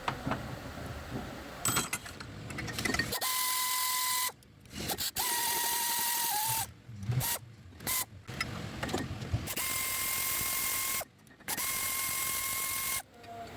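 Power tool running in four short bursts, each a steady whine over a hiss, with a few clicks and knocks of hand work before and between them, during a rear wheel hub bearing replacement.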